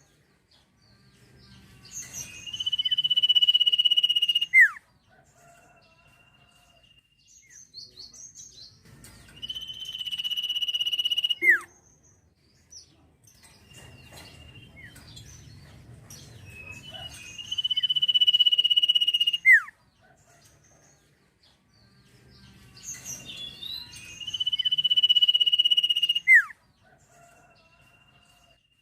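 Sirtu songbird singing four phrases. Each phrase is a long, steady, high whistled note that ends in a quick falling note, with short pauses and faint calls between.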